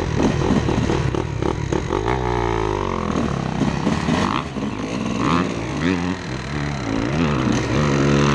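2004 Honda CR250R two-stroke single-cylinder dirt bike engine under riding load, revving up and down. Its pitch drops about two seconds in and climbs back, then rises and falls several more times.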